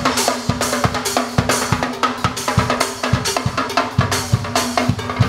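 Drum band playing on a passing boat: a drum kit with bass drum, snare and cymbals keeping a steady beat of about three strokes a second, over a held low note.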